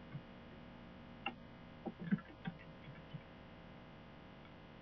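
Faint, irregular clicks of a computer keyboard and mouse as a word is typed in a text file, a handful of separate clicks over a low room hum.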